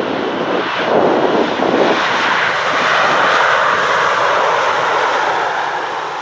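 Jet engines of a Boeing 777-300 airliner during its landing rollout after touchdown: a loud, steady jet rush that swells about a second in and holds, easing slightly near the end.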